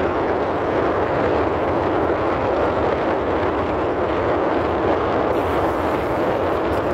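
Steady rushing noise inside a car cabin.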